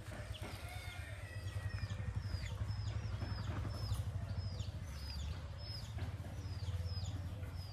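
A bird calling over and over, short high notes that each drop in pitch, about two a second, starting about a second and a half in, over a steady low rumble.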